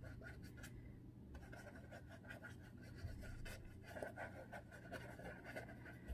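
Paintbrush dabbing and scrubbing wet watercolour paint on a canvas: faint, irregular small taps and brushing strokes, with a quieter pause of about half a second near the start.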